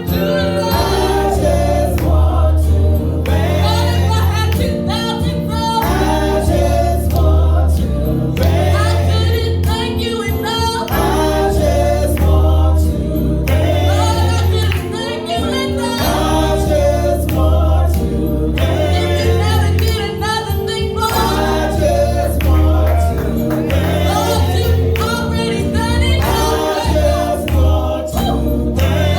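Gospel singing by a choir over instrumental accompaniment, with a strong bass line moving in steps beneath the voices.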